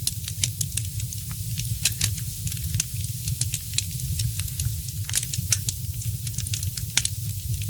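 Wood fire crackling: irregular sharp pops and snaps, several a second, over a steady low rumble of the burning fire.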